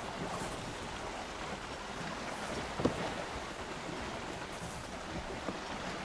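Steady sea and wind noise outdoors by the water, with one sharp tap about three seconds in.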